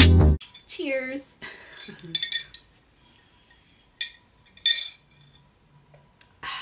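Glass mason jar of water clinking with a bright ringing tone several times as it is handled and sipped through a straw, the clearest clinks about four and five seconds in.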